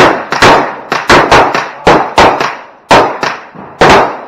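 Pistol fired in a rapid string, about ten loud shots at uneven intervals over four seconds, each with a short echoing tail, as the shooter clears a table of bowling pins.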